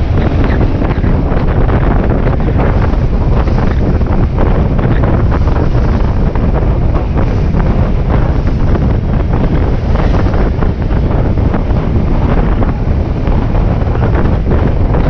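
Loud, steady wind buffeting the microphone of a moving motorcycle on the road.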